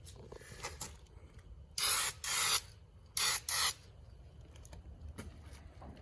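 Aerosol spray paint can spraying in four short bursts, two quick pairs about a second apart.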